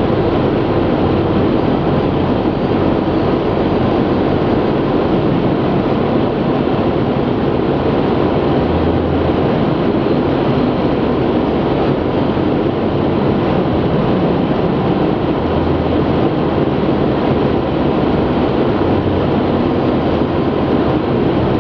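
Steady road and tyre noise with the engine running, heard inside a car's cabin at motorway cruising speed.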